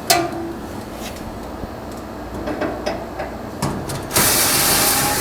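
Sheet-metal parts of an electric dryer being handled and worked loose: scattered clicks and knocks, then about four seconds in a loud scraping rub lasting about a second, as of metal sliding against metal.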